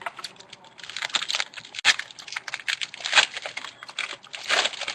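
Trading cards being handled: a quick run of small clicks, taps and slides as cards are flicked, stacked and sorted against each other.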